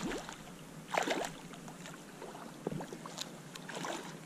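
A few short splashes of water, the loudest about a second in, from a hooked brown trout thrashing in shallow lake water.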